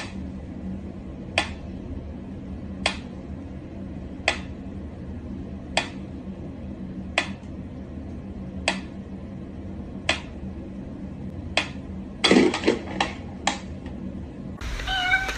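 Sharp clicks or light taps on something hard, one about every second and a half, then a quick run of several near the end, over a steady low hum.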